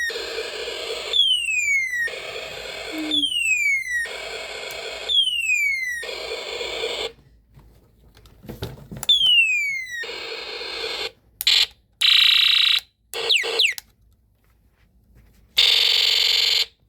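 Snap Circuits space war sound module playing through its small speaker. It makes a falling laser-like whistle followed by a burst of buzzy hiss, about every two seconds. After a short pause the pattern changes to short choppy hiss bursts and then one longer hiss.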